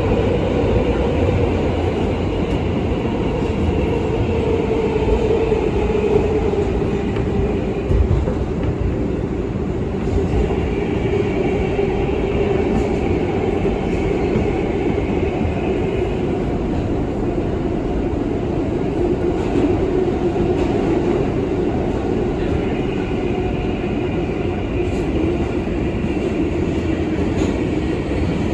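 NYC Subway L train heard from inside the car while running between stations: a steady rumble of wheels on rail with a hum that sinks slightly in pitch over the first few seconds and then holds. A higher whine comes and goes, and there are a few sharp clicks of the wheels over rail joints.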